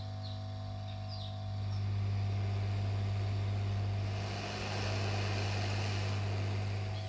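Hot-air rework station running: a steady low motor hum with a rushing air hiss that swells louder twice.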